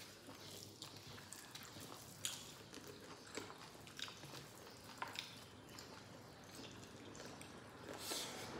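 Close-up eating sounds: faint chewing with short, irregular wet mouth clicks and smacks as rice and meat curry are eaten by hand.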